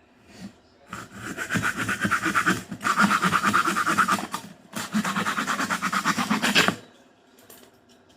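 Saw cutting through a piece of soft wood in quick back-and-forth strokes, in three runs broken by two short pauses, stopping near the end.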